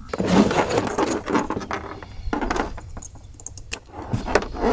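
Clicks, rattles and rustling as a mobile radio's microphone cord, power cables and connectors are handled and plugged in, in short irregular bursts.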